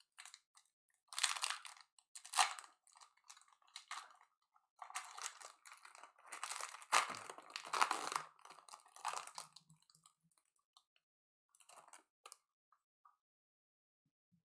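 Packaging of a baseball card pack being torn open and crinkled, with the cards inside handled, in irregular short bursts. The sound dies away about two seconds before the end.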